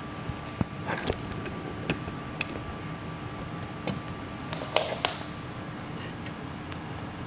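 Scattered light ticks and clicks from the water-filled aluminium drink can on the induction heater coil, over a steady faint hum. About five seconds in comes a louder cluster of clicks and scrapes as a utensil is put into the can.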